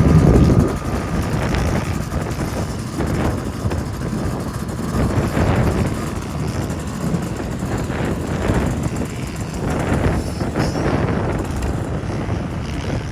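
Pit bike engines running on a motocross track, louder for a moment at the start, with wind on the microphone.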